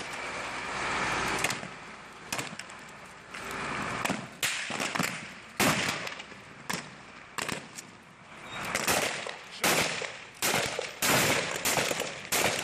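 Small-arms gunfire in a firefight: irregular single rifle shots and short strings of shots, some close and some farther off, coming thicker and faster in the last few seconds.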